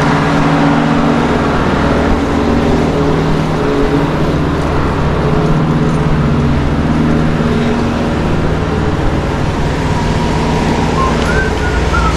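Diesel engine of a parked tractor-trailer idling with a steady drone, over the rumble of a loaded hand truck's wheels rolling across asphalt. A couple of short high squeaks near the end.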